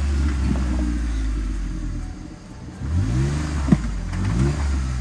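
Off-road Jeep's engine revving in surges while crawling over a rock obstacle. The revs rise, sag around two seconds in, then climb again, with a short sharp knock just before four seconds in.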